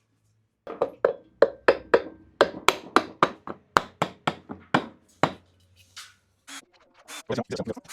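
Sharp knocking clicks of hand-tool work on an electric scooter hub motor's casing as it is put back together, about three or four a second. They stop about five seconds in and start again briefly near the end.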